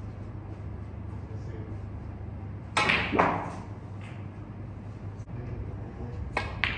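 Snooker balls being struck: a loud pair of knocks about three seconds in as the cue ball is hit and meets another ball, then two sharper clicks near the end as the next shot is played. A steady low hum runs underneath.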